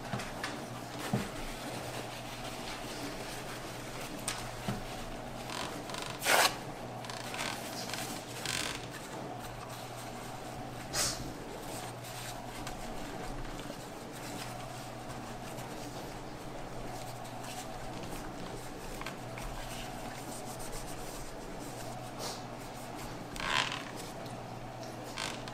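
Paper towel rubbing and rustling as it wipes the top of a desktop CPU on a motherboard, in short intermittent strokes, the strongest about 6 s in, 11 s in and 23 s in. A faint steady hum runs underneath.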